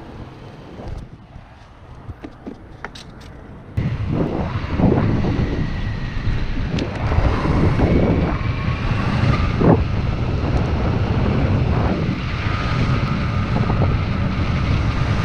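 A few light clicks, then about four seconds in, a Meepo Hurricane belt-drive electric skateboard riding: a thin motor whine that glides up and down in pitch over the rumble of its pneumatic tyres, with wind on the microphone.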